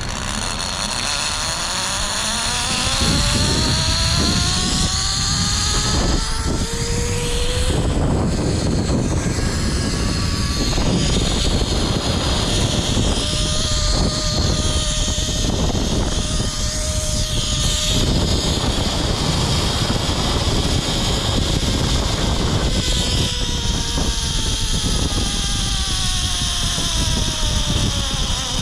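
Zipline trolley pulleys whining along the steel cable, rising in pitch as the rider picks up speed, holding steady mid-ride and falling as he slows near the end, under heavy wind buffeting the microphone.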